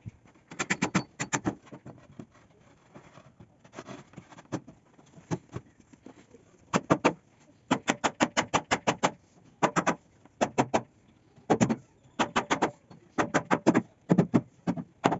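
Hammer blows on a wooden door frame, coming in quick bursts of several taps a second, tapping the rails and panel tight into their joints during assembly.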